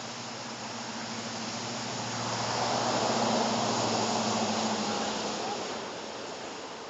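An engine running steadily, with a rushing noise that swells to its loudest about three seconds in and then fades.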